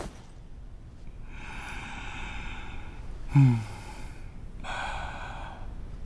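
A person breathing hard: two long, noisy breaths, with a short low grunt between them.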